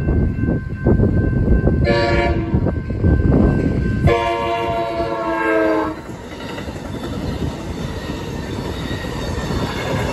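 Passenger train's air horn sounding the end of the grade-crossing signal: a short blast, then a long one that dips slightly in pitch as the locomotive passes. The crossing bell rings under it at first. The train then rumbles over the crossing, wheels running on the rails.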